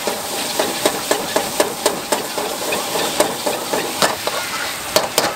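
Metal ladle scraping and clanking against a wok about three times a second as flat rice noodles are stir-fried, over a steady sizzle of frying.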